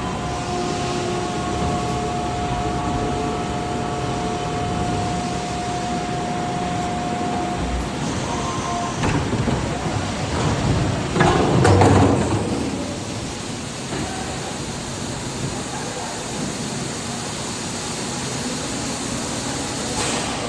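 Delta Machines ISB 80 injection stretch blow molding machine running with a steady mechanical noise. A thin steady tone fades out about seven seconds in. A louder, noisy surge comes about eleven seconds in and is followed by a steady high hiss.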